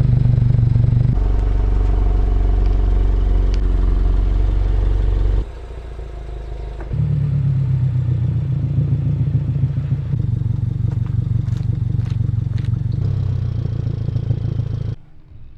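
Subaru VB WRX's turbocharged 2.4-litre flat-four running steadily through an aftermarket exhaust. The sound cuts abruptly to a different level and tone about a second in, around five and a half seconds in and again around seven seconds in, then stops suddenly near the end.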